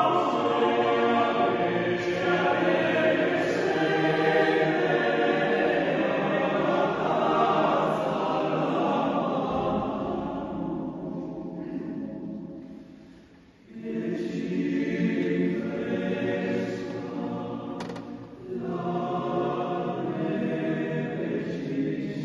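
Men's choir singing unaccompanied in a church. The sung phrase dies away to near silence about halfway through, then the choir comes back in at full voice, with another short break a few seconds later.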